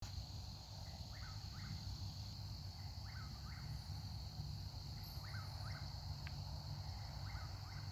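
Eastern whip-poor-will calling from across the forest, its 'whip-poor-will' song repeated four times, about every two seconds, over a steady high hum.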